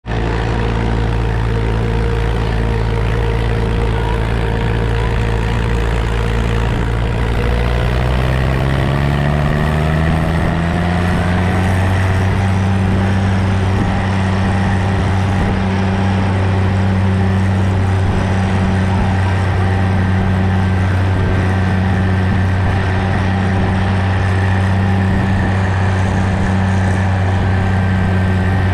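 Farm tractor engine running while driving, heard from the seat. Its pitch rises as it speeds up about a third of the way in, then holds steady.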